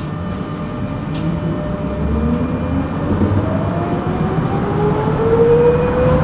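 Electric tram accelerating: the traction motors' whine rises steadily in pitch over the rumble of the wheels on the rails, and the sound grows louder.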